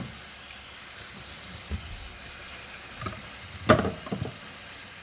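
Cooking utensils knocking against a pot of simmering spinach as fish is added: a soft knock about a second and a half in, then a sharp clatter about three and a half seconds in followed by two lighter knocks, over a faint steady hiss.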